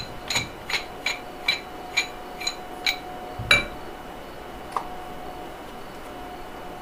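Planet Eclipse Geo paintball marker being worked by hand to push its bolt back: a run of about eight light metallic clicks, evenly spaced at roughly two and a half a second, then one heavier knock, and a single faint click a little later.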